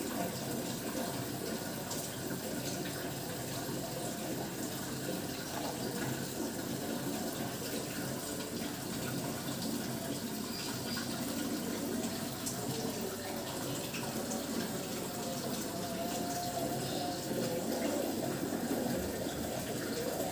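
Steady running water from an aquarium filter circulating the tank.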